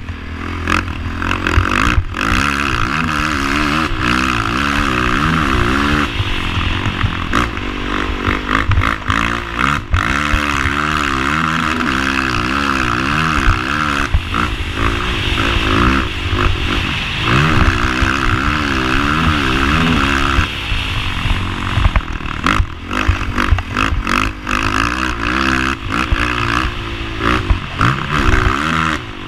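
Honda TRX450ER quad's single-cylinder four-stroke engine revving up and down over and over, with its pitch rising and falling and a few brief drops off the throttle. Sharp knocks and clatter run through it.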